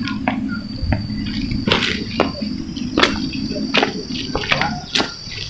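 Crickets keeping up a steady high-pitched drone, over a low steady hum, with irregular scuffs and clicks of footsteps on a dirt path.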